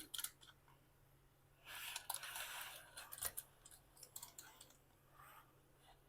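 Faint clicks and a short rustling scrape as a phone screen-separator tool is handled and turned to lift the screen. A single sharp click comes a little after three seconds in, followed by scattered small ticks.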